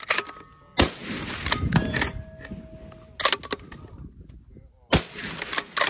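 Sharp clicks and knocks of a bolt-action precision rifle being handled on a rock rest, the loudest about a second in and several more near the end, with short steady ringing tones in between.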